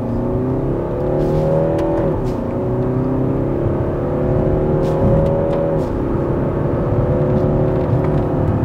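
BMW X5 25d's 2.0-litre TwinPower Turbo four-cylinder diesel accelerating, heard from inside the cabin. The engine note climbs, drops at an upshift of the 8-speed ZF automatic about two seconds in, climbs again and drops at a second upshift near six seconds, then rises once more.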